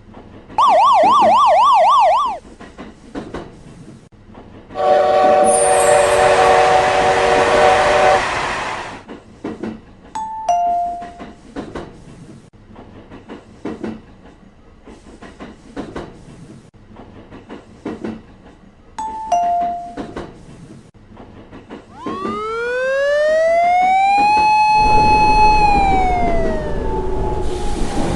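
A run of cartoon train and street sound effects. First a fast warbling siren, then a train horn chord over the rush of a passing train. Two two-note ding-dong chimes follow, then a tone that rises, holds and falls away, and train noise rushing in at the end.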